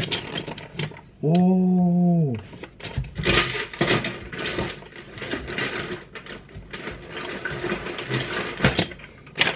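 Plastic parts bags crinkling and rustling, with small clicks of parts knocking together, as hands rummage inside a cardboard box. Shortly before, about a second in, a man gives a short held hum.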